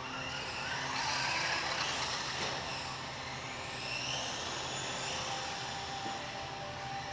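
Electric motors and gears of radio-controlled off-road cars whining as they run around a dirt track, the pitch rising and falling with the throttle.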